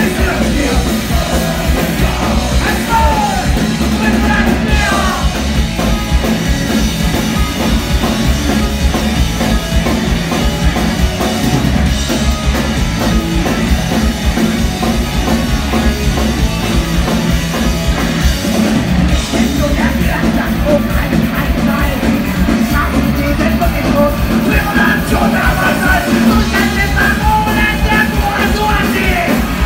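A punk rock band playing loud and live: electric guitars, bass and drum kit, with shouted singing over the top.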